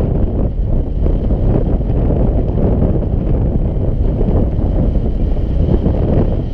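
Airflow of paraglider flight buffeting a GoPro's microphone: a loud, steady wind rumble that sits mostly in the low end.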